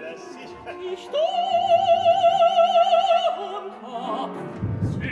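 Mezzo-soprano singing opera with orchestra: about a second in she holds a loud high note with wide vibrato for about two seconds, then sings on more quietly. The orchestra swells in the bass near the end.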